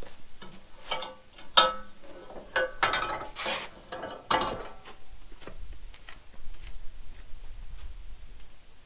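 A run of sharp knocks and clinks, the loudest in the first half, then lighter scattered ticks.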